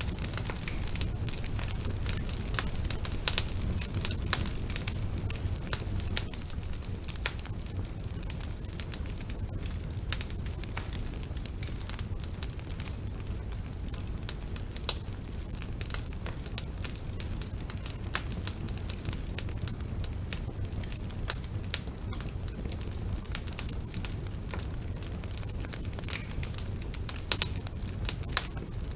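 Wood fire burning in a fireplace, crackling with frequent sharp irregular pops over a steady low rumble of the flames.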